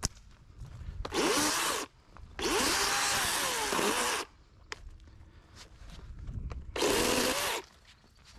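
Small battery-powered chainsaw cutting through branches in three separate bursts: a short one, a longer one of about two seconds whose pitch dips and recovers as it cuts, and a short one near the end. The motor stops completely between cuts instead of idling.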